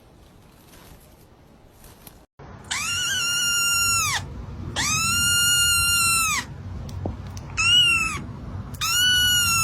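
An animal calling four times: long, steady, high-pitched cries, the third one short, after a faint first two seconds.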